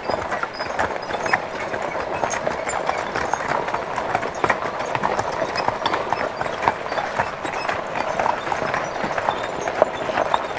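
Draft horses' hooves clip-clopping as a team pulls a wagon, with a steady dense rattle of the wagon running along.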